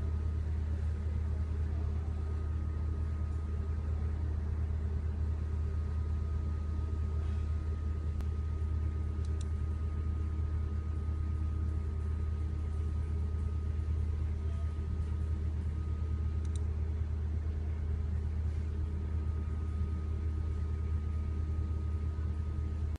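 A steady low hum with a faint constant high whine above it, unchanging throughout, with a couple of faint ticks. It has none of the rise and fall of wind or the clatter of hail.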